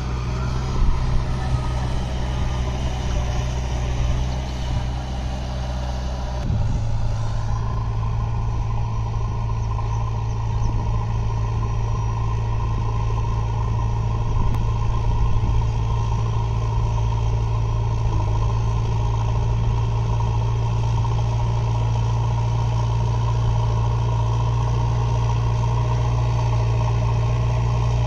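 JCB backhoe loader's diesel engine running steadily. Its engine note shifts abruptly about six seconds in, then holds steady.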